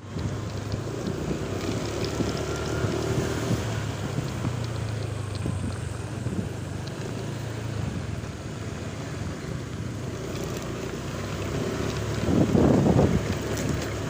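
A motor vehicle engine running steadily, with wind rushing over the microphone. A louder swell of sound comes and goes about twelve seconds in.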